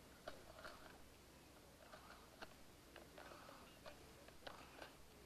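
Near silence with faint, scattered soft clicks and rustles as foam Nerf darts are gathered by hand from grass.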